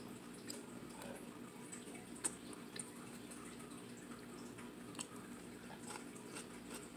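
Faint mouth sounds of chewing and small clicks of a fork against a ceramic plate over a steady low room hum, with one sharper click about two seconds in.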